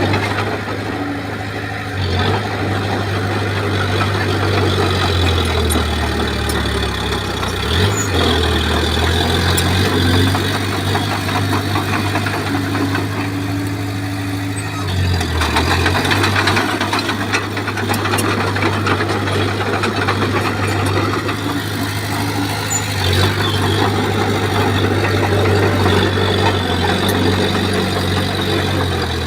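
Bulldozer's diesel engine running under load as it pushes fill, its note dropping and picking up again a couple of times.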